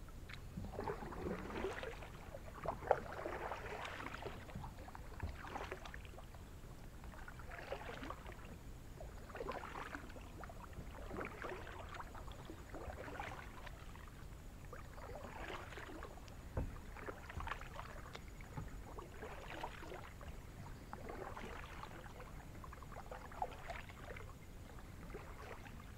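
Double-bladed kayak paddle dipping and pulling through the water, alternating sides: a splashing swish of each stroke roughly every two seconds, with an occasional light knock.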